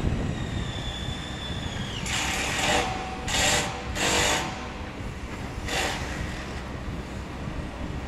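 Construction-site machinery noise: a steady low rumble, with a thin high whine in the first couple of seconds, then four short hissing bursts between about two and six seconds in.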